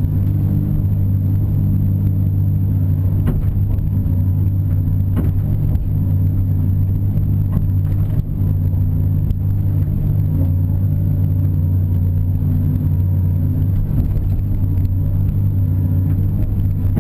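CAT 330 hydraulic excavator's diesel engine running steadily at working revs, heard from inside the operator's cab, with a few faint knocks.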